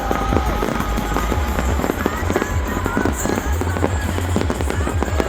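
Fireworks going off in quick succession, a dense run of crackles and pops over low booms, with music playing underneath.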